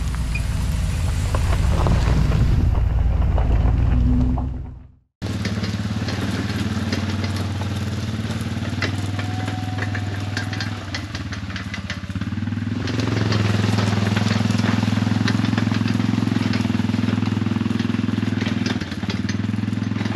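A quad (ATV) engine running steadily. The sound drops out briefly about five seconds in, and the engine runs harder from about thirteen seconds in.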